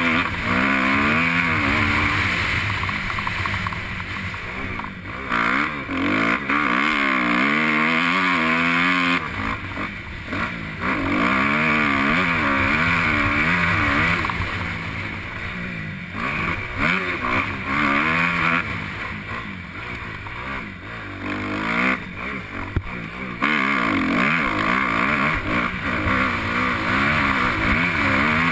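Motocross bike engine heard from the rider's helmet, revving up and dropping back again and again as the throttle is opened and shut through the gears on a sand track. A steady rush of wind runs underneath.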